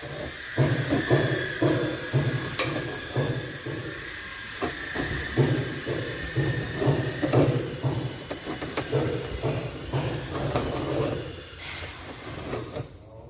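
Hand-turned iron spoon auger cutting through a wooden ship's rib, giving a rhythmic scraping creak about twice a second as each turn shaves the wood. Its tip has broken through the far face of the rib.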